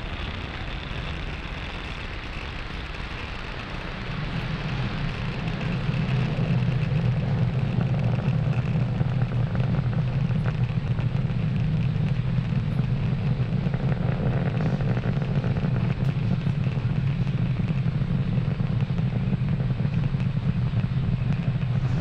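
A Falcon 9 rocket's nine Merlin 1D first-stage engines burning in ascent, heard from the ground as a steady low rumble. It grows louder about four to six seconds in, then holds.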